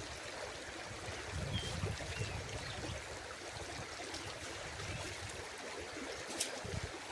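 Steady rush of flowing water, with uneven low rumbling underneath and a single sharp click near the end.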